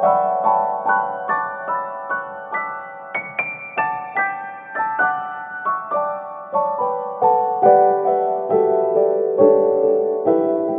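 Background piano music: notes struck at an even pace, each ringing and fading, the melody climbing to a high point about three seconds in and then stepping back down.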